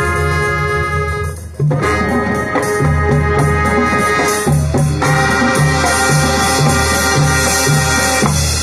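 High school marching band playing loud sustained brass chords over a steady bass drum beat of about two a second. There is a brief break about a second and a half in, and the band cuts off near the end.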